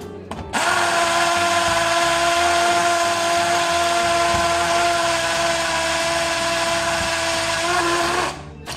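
Porter-Cable PCC620 20V cordless hammer drill drilling into a concrete beam with a 3/8-inch masonry bit. It runs steadily, a whine over a harsh grinding rattle, starting about half a second in and stopping near the end.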